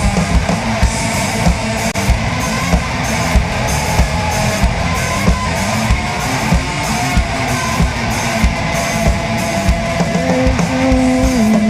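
Instrumental break of a heavy rock song: distorted electric guitars over a drum kit keeping a steady beat. Near the end a melodic guitar line comes in with held, bending notes.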